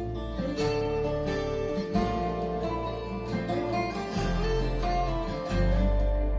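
Instrumental passage of a song played back through DIY transmission-line hi-fi speakers: acoustic guitar strumming over a deep bass line that changes note every second or two.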